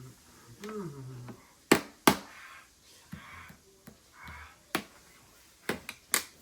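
A small hammer tapping at a block of ice with sharp, irregular knocks, about six in all. The two loudest come close together near two seconds in, and a quick run of three comes near the end.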